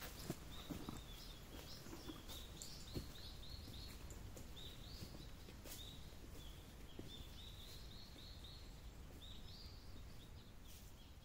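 Faint woodland ambience: high, short chirping calls repeated in runs of several notes through the whole stretch, over a low steady background rumble. A few light crackles, like steps in dry leaves, in the first couple of seconds.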